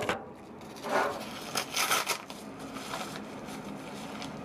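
Handling noise: rustling and rubbing, with short scraping bursts about a second in and again near two seconds, then a steady low hiss.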